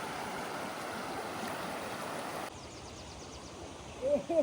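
River water rushing steadily over stones, which cuts off abruptly about two and a half seconds in to a quieter background. Near the end a run of short, evenly repeated pitched calls begins.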